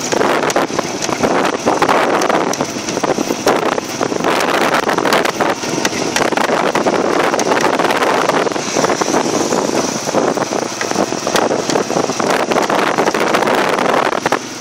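Loud wind noise buffeting the microphone as it moves along, with frequent small knocks and rattles throughout.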